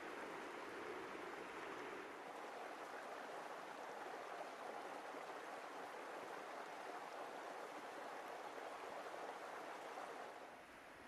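River water rushing steadily, becoming quieter about ten seconds in.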